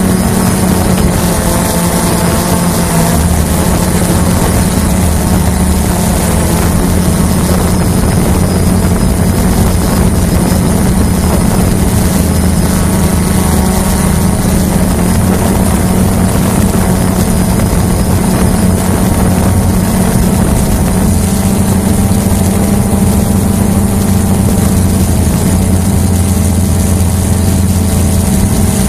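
Hubsan H109S quadcopter's motors and propellers humming steadily in flight, heard from on board. The pitch drifts slightly as the drone changes speed.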